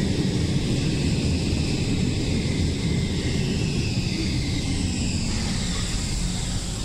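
Helsinki metro train rumbling along the platform as it slows, its motor whine falling in pitch and dying away about five seconds in.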